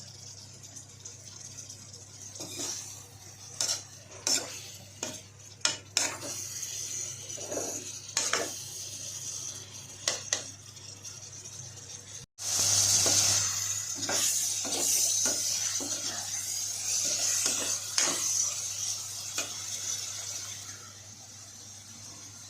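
Food sizzling in oil in a pan while a cooking utensil stirs it, clinking and scraping against the pan. After a sudden cut about halfway through, the sizzling is louder and steadier, then dies down near the end.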